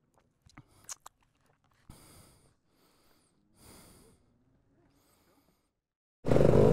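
A few faint clicks, then three soft breaths close to the microphone. Near the end a dirt bike engine cuts in loudly and runs steadily.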